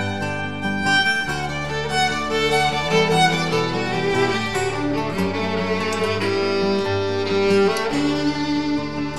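Instrumental background music: a violin melody over sustained chords that change about every second.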